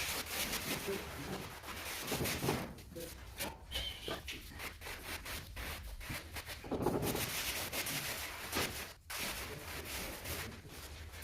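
Irregular scraping and rubbing of a hand tool worked over a cement mortar bed.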